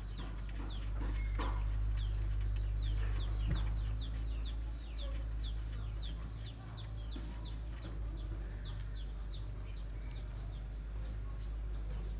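Birds chirping: a quick run of short, falling peeps, a few each second, over a steady low hum. A few faint knocks come in the first few seconds.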